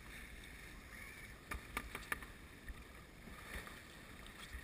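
Water rushing and splashing along the hull of a Grand Surprise sailing yacht as it heels through choppy waves under sail. Three sharp knocks come close together about halfway through.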